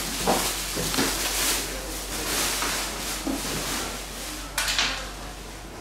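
Scattered clicks and knocks of a hand tool and plastic parts as the mounting hardware of a plastic scooter top box is fitted, over a steady hiss of room noise.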